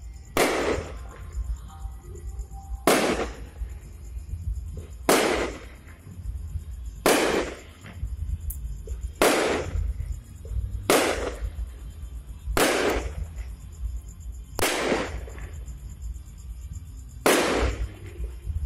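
Aerial fireworks shells bursting overhead, about nine sharp bangs roughly two seconds apart, each followed by a short fading tail.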